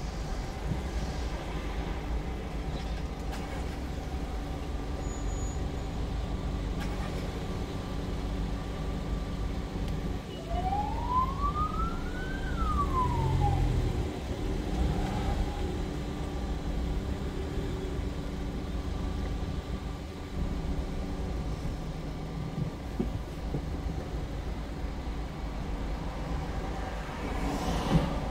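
Inside a moving car: steady low engine and road rumble. About ten seconds in, a single siren-like whoop rises and then falls in pitch over about three seconds. A few short knocks come near the end.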